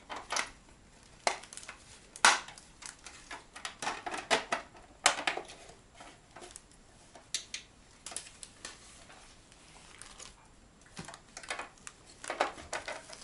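Irregular clicks, taps and knocks of small hard objects being handled and set down, loudest about two and five seconds in.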